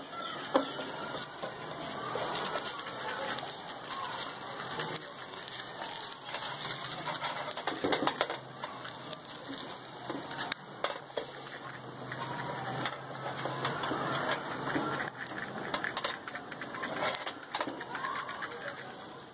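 Charcoal grill crackling and sizzling under skewered chicken wings drizzled with cooking oil, with many irregular sharp pops over a steady hiss.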